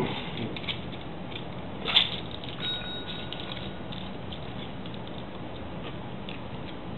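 Desk service bell struck once by a cat's paw about two seconds in, a sharp ding that rings briefly, among faint soft taps and rustles.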